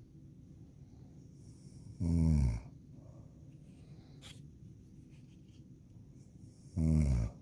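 A woman snoring loudly: two snores about five seconds apart, each lasting about half a second and sliding down in pitch.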